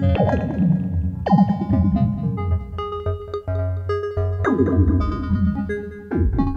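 Make Noise Eurorack modular synthesizer playing a stepped sequence of pitched, plucked notes over a steady bass. The oscillators pass through QXG lowpass gates driven by PoliMATHS envelopes. Bright notes sweep downward about four times.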